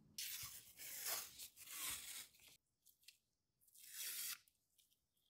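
Masking tape being torn off a roll, a rough tearing sound lasting about two seconds, then a short scratch of a pen writing on the tape about four seconds in.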